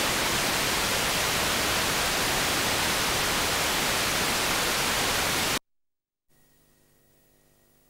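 Loud, steady static hiss from blank videotape, cutting off suddenly about five and a half seconds in. After a brief silence, a faint low hum with a few steady tones begins.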